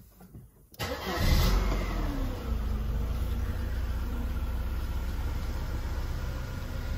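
Mercedes-Benz 190E engine starting about a second in, revving up briefly, then settling into a steady idle.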